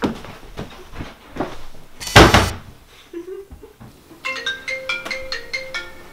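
A loud thump about two seconds in. From about four seconds a smartphone's ringtone plays for an incoming call, a quick repeating melody of short, clear notes.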